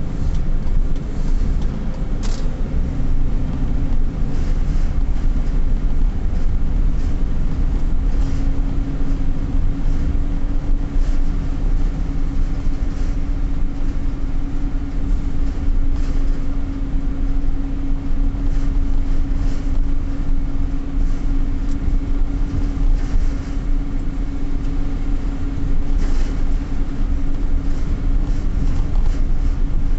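Steady road and engine noise inside a moving car's cabin: a low rumble of tyres and engine, with a steady hum through most of it.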